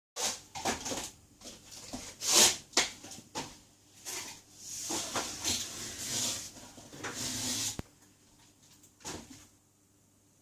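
Handling noise from tools and hands working on a smartphone being taken apart: a string of sharp clicks and taps, then several seconds of scraping and rubbing that stops about eight seconds in, with one short scrape near the end.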